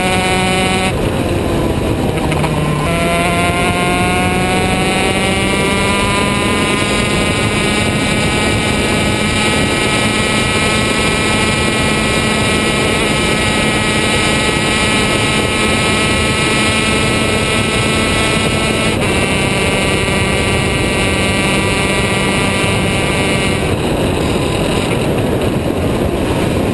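Two-stroke shifter kart engine running hard on track, heard from on board. Its pitch climbs slowly along long pulls, breaking and jumping abruptly a few times.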